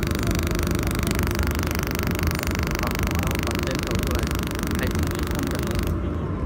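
200 W mold laser welding machine running while it welds a stainless steel tube: a steady low machine hum under an even hiss. The hiss cuts off suddenly near the end, as the weld stops.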